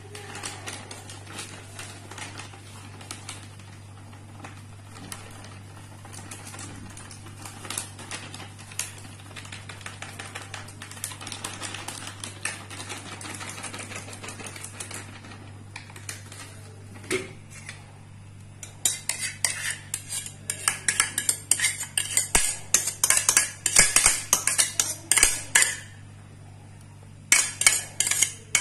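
Crinkling of a plastic bag and soft handling sounds as chicken pieces are mixed in a plastic bowl. About two-thirds of the way in comes a metal utensil scraping and clinking rapidly against a bowl for several seconds, then again briefly near the end. A steady low hum runs underneath.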